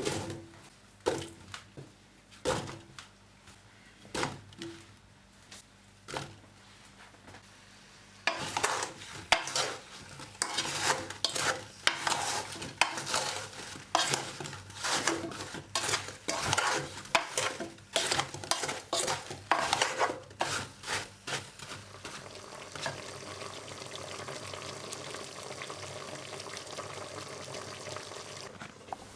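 Quartered apples with butter and sugar cooking in a Dutch oven: a few scattered knocks, then about 14 s of a utensil stirring them, scraping and knocking against the pot, and from about 22 s in a steady, gentle sizzle.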